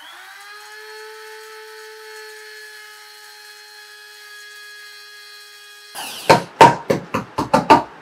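NIMA 2-in-1 electric spice grinder's motor running with a steady high whine as it grinds roasted cumin seeds, spinning up at the start and stopping about six seconds in. Then a quick run of about seven sharp, loud knocks.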